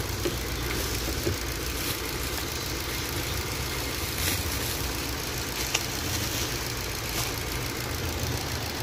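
Jetour X70's engine idling steadily, with a few light clicks now and then.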